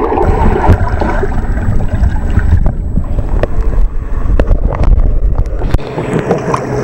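Water churning and sloshing close against a handheld waterproof camera while snorkelling, a loud low rumble broken by scattered sharp knocks and clicks; the rumble eases about six seconds in.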